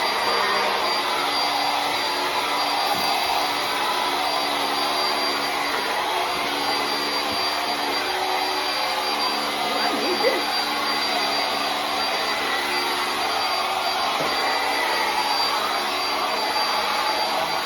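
Hoover ONEPWR Blade+ cordless stick vacuum running steadily, a rushing motor-and-airflow noise with a steady high whine over it.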